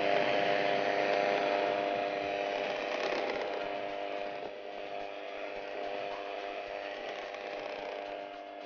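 Electric hand mixer beating a batter, its motor running with a steady hum that slowly gets quieter.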